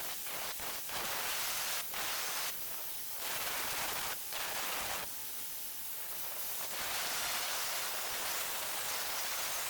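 Welding arc hissing steadily along the crack of an alloy wheel, breaking off briefly and restarting a few times.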